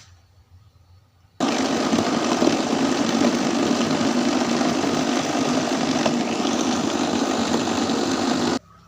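Electric kitchen blender running at a steady speed, grinding shallots and garlic with a little water into a smooth paste. It starts abruptly about a second and a half in, runs for about seven seconds, and stops suddenly near the end.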